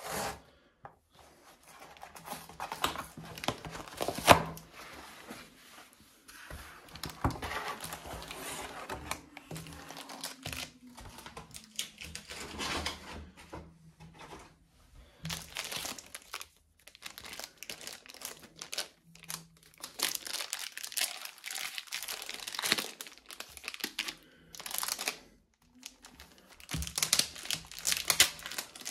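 Hands tearing open a cardboard mailer by its tear strip, then rustling and crinkling as the plastic shrink wrap is peeled off a boxed CD album. The sounds come in irregular bursts with short pauses, the loudest a sudden sharp one about four seconds in.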